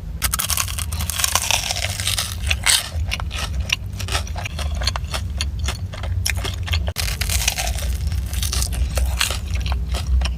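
Crunching of a fried, sugar-coated Korean corn dog being bitten and chewed, a dense run of crisp crackles over a steady low hum.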